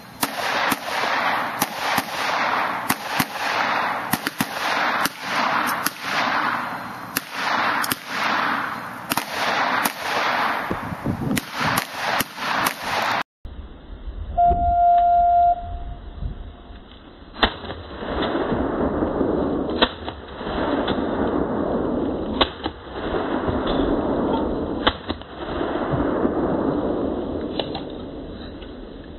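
Pistol shots at targets, each with a rolling echo: a fast string at roughly two shots a second, then a single steady electronic beep like a shot timer's start signal, followed by slower shots a couple of seconds apart.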